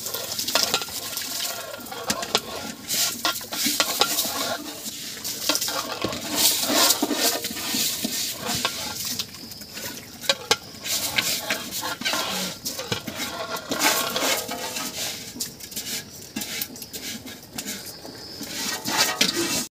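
Rice poured into a large aluminium pot of steaming biryani masala liquid, then a ladle stirring it, knocking and scraping against the pot again and again at an irregular pace.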